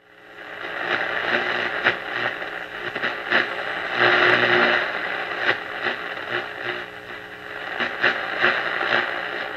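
Antique Philco 38-62 tube radio giving out static: a hiss with crackles over a steady low hum, and no station coming through. It fades in at the start. This hiss and buzz with no reception is the radio's fault, put down to failed filter capacitors.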